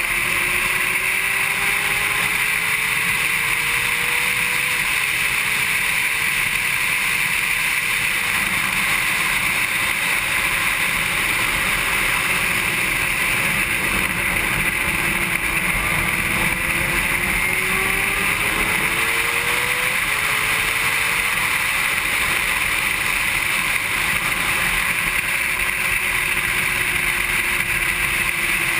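Honda CBR600RR's inline-four engine running hard around a race track, its pitch climbing steadily through each gear and dropping back at each upshift, over a steady rush of wind noise.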